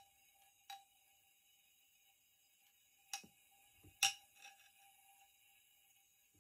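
Lightning 2000 plasma lamp running with a faint steady high whine, and a few sharp ticks as a neon-filled glass tube is touched against its glass dome, the loudest about four seconds in.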